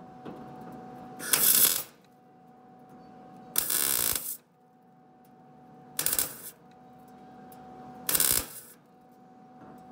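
Lincoln 110 MIG welder laying four short tack welds, each a crackling half-second burst of arc about two seconds apart, with a faint steady hum between them. The wire is not feeding through smoothly because of kinks in the line.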